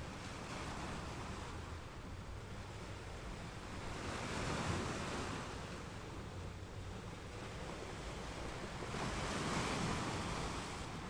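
Sea surf washing on a pebble beach as a steady wash of noise, with two louder swells as waves break, one about halfway through and one near the end.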